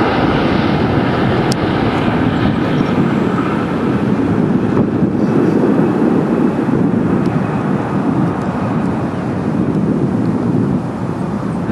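Jet engines of a Boeing 737 rolling out after landing: a steady rushing roar whose high hiss thins after the first couple of seconds, the whole sound dropping a little near the end.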